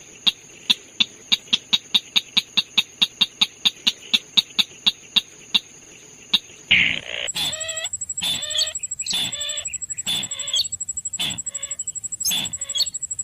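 Chim chằng nghịch bird calls: a fast run of sharp clicking notes, about five a second, then about seven seconds in a loud harsh call and a string of rough chattering calls. A thin steady high-pitched tone sits underneath.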